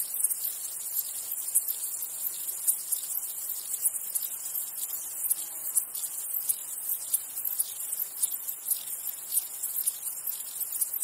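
Insects chirping steadily in a high-pitched, rapidly pulsing chorus, with some pulses standing out louder than the rest.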